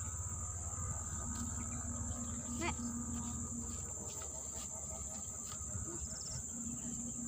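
Steady high-pitched drone of insects in the swamp vegetation, running on without a break.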